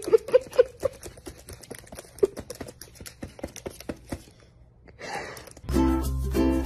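Laptop keys clicking irregularly as a caique parrot steps and bobs on the keyboard, several clicks a second, dying away after about four seconds. Light music comes in near the end.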